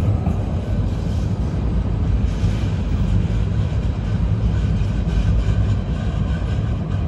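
Steady low rumble of downtown street noise, with a CTrain light-rail train approaching along the street-level tracks.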